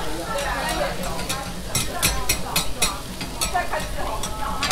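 Metal spatula scraping and tapping on a hot flat-top griddle while okonomiyaki batter is pushed into a round, over a steady sizzle of frying; a quick run of about six sharp clicks comes a little under halfway in.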